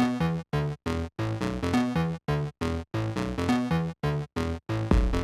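Background electronic pop music: an instrumental stretch of synthesizer chords chopped into short rhythmic stabs, with a deep bass coming in near the end.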